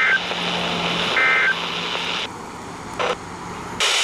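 Two short buzzy bursts of EAS SAME digital data tones about a second apart: the end-of-message code that closes the NOAA Weather Radio warning. They sound over radio static and a low hum. The static drops out about halfway through, a single click follows, and the hiss comes back just before the end.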